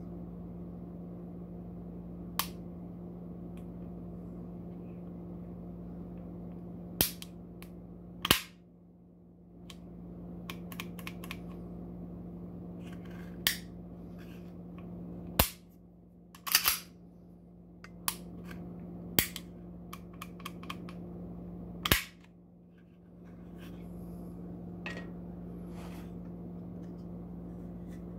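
Heckler & Koch P8A1 pistol's action being worked by hand: about ten sharp metallic clicks and snaps of the slide, controls and trigger, at uneven intervals, ending a few seconds before the end.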